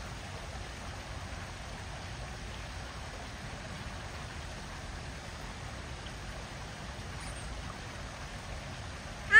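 Steady outdoor background noise, even and hissing, with one short, loud honking call right at the end.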